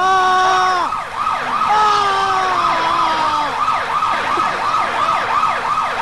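Emergency-vehicle siren. It opens with long, slowly falling tones, then goes into a rapid yelp whose pitch rises and falls about three times a second.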